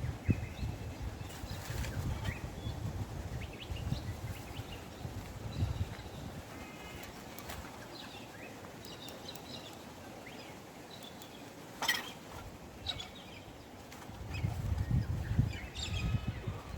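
Scattered bird chirps and short calls, with bursts of low rumbling noise and a single sharp click about twelve seconds in.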